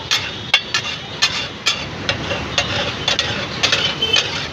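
Metal spatula knocking and scraping on a large flat griddle (tawa) as pav bhaji is mashed and stirred: irregular sharp clanks, several a second at times, over a steady low rumble.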